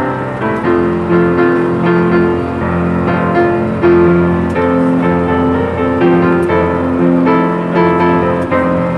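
Solo piano playing a pop tune at a steady beat: repeated bass notes and chords under a melody line.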